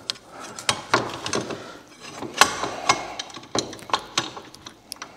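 Irregular series of sharp metal clicks and knocks from a Can-Am Maverick X3 front brake caliper being wiggled by hand against the brake disc and knuckle while it is worked into line with its mounting holes.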